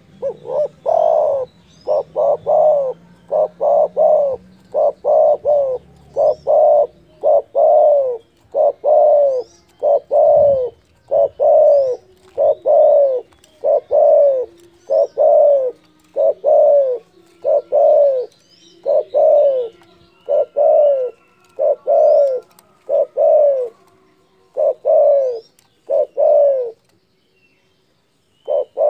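Spotted dove (derkuku) cooing over and over, a long run of loud, low coos, often two close together, that stops about two seconds before the end. Faint high chirps of small birds sound above it.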